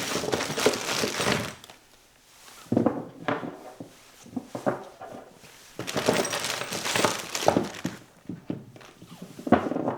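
Skate wheels and packaging being handled: rustling of a bag and several thunks and clacks as the hard parts are taken out and set down.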